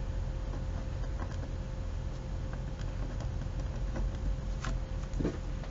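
Pen writing on paper: faint scattered scratches and ticks of the strokes over a steady low hum.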